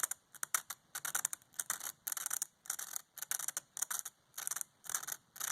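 Sewing-pin head in a pin vise rubbed back and forth on a coarse emery board: a rhythmic dry scratching, about two strokes a second, as one flat of a scale hex bolt head is sanded.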